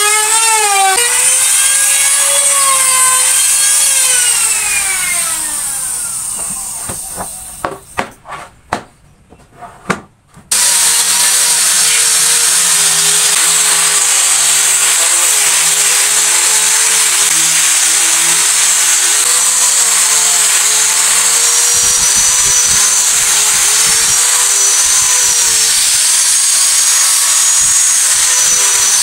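Electric woodworking power tool cutting wood, its motor pitch wavering under load, then winding down to a stop a few seconds in. A few knocks follow, and about ten seconds in the tool starts again abruptly and runs steadily under load with a high whine.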